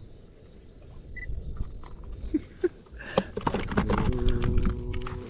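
A freshly landed grunter (gerut) being handled with a fish lip grip: sharp clicks and rattles of the grip and line from about halfway in, then a steady croak lasting about a second near the end, the grunting call of the fish out of the water. Low wind rumble on the microphone runs underneath.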